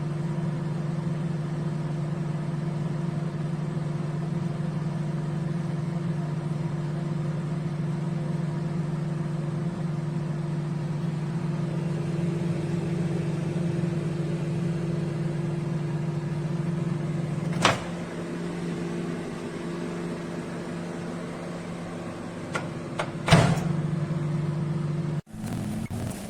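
Candy Smart CMG2071DS grill microwave running with a steady low hum. A sharp click comes about two-thirds through, after which the hum is a little quieter. A few more clicks follow, the loudest near the end.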